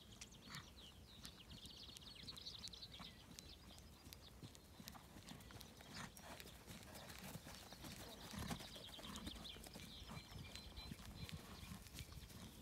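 Faint hoofbeats of a ridden cob moving on grass turf, soft uneven thuds that grow a little louder as the horse comes near.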